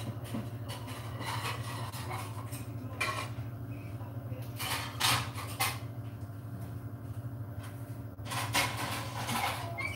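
Dishes and cutlery clattering and clinking as they are handled, in a few separate bursts, over a steady low hum.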